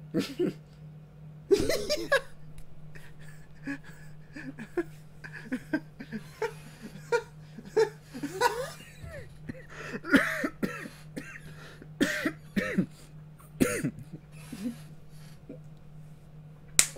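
A man laughing in repeated short bursts, over a steady low hum.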